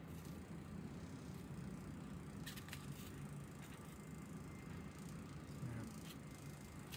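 Faint room tone with a few light plastic clicks and taps, a small cluster about two and a half to three seconds in, from a hand handling a phone and the USB modem dongle plugged into it.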